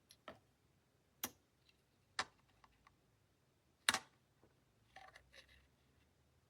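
Irregular light clicks and knocks of small hard objects being handled, the loudest a little before four seconds in. No hair dryer motor is running.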